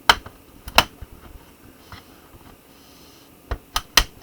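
Sharp plastic clicks of a laptop's bottom-case clips snapping loose as the case is pried open: two in the first second, then three in quick succession near the end.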